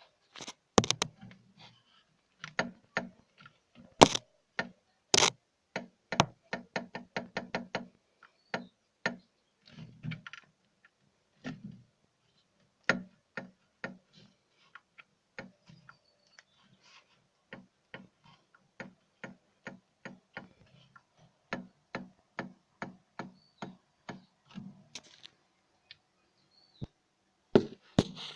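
Rear coil springs of a 2016 Renault Duster 4x4 knocking over bumps: repeated sharp knocks and clicks, some with a dull thud, coming irregularly and at times in quick runs of several a second. The loudest knocks come in the first few seconds.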